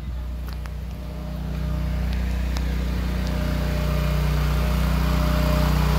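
Honda-powered portable generator running steadily on natural gas while carrying a whole house's load, central air conditioner included. Its engine hum grows louder from about a second and a half in.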